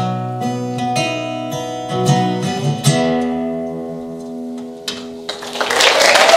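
Acoustic guitar playing the closing notes of a song, a last chord ringing out and fading, then applause breaking out about five seconds in.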